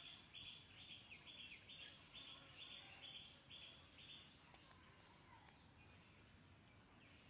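Faint outdoor insect chorus: a steady high-pitched drone, with a run of short chirps about twice a second that stops about four seconds in.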